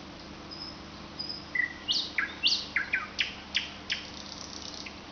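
Nightingale singing: a few thin high whistles, then about two seconds of rapid, sharply falling whistled notes, several a second.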